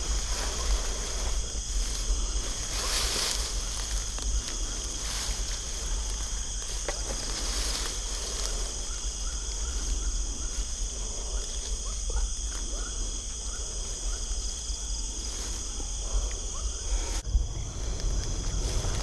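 Night-time chorus of insects and crickets: a steady, high-pitched shrill that goes on without a break, over a low rumble, with a few faint rustles. Near the end the chorus drops away suddenly and the low rumble grows.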